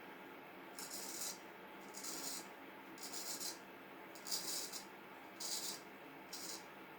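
Vintage Norton straight razor shaving through a week-old beard: six short scraping strokes about a second apart.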